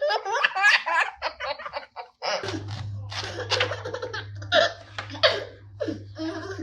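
Baby laughing in quick, high giggles that stop about two seconds in. After a short break, another bout of baby laughter starts over a low steady hum.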